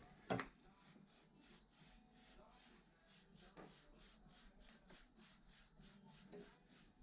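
Near silence, with one sharp knock shortly after the start and then only faint, regular ticking, about four ticks a second.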